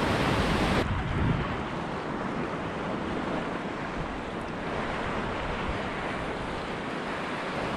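Wind and ocean water rushing over the microphone, with a low uneven buffeting rumble underneath. The high hiss drops away a little under a second in.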